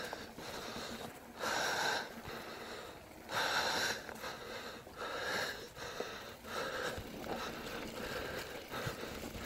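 A person breathing hard in a steady rhythm, a hissing breath about every second and a half, as from the effort of riding a trail in the cold.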